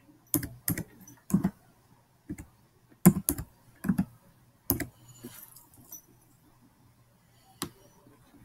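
Computer keyboard being typed on: about a dozen separate, irregular keystrokes, bunched in the first five seconds, with one last key near the end.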